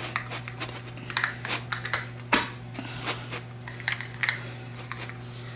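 Novelty axe-shaped pizza cutter being pressed and worked through a pepperoni pizza's crust on a metal pizza pan: a run of irregular crunching clicks, the sharpest a little over two seconds in. A low steady hum runs underneath.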